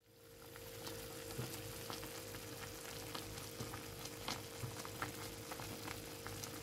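A pot of stuffed peppers sizzling and bubbling as they cook in their liquid, with many small scattered pops over a steady hiss, and a steady hum underneath.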